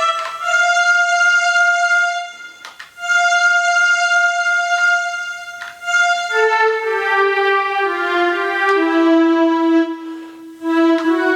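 Travel Sax 2 electronic wind instrument playing its ensemble strings voice. It holds one long high note, breaks off briefly, then plays a short phrase of lower notes stepping downward.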